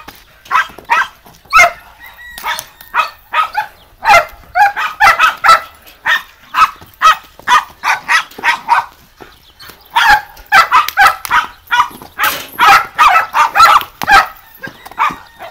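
Dog barking over and over in quick runs of short, sharp barks, several a second at times.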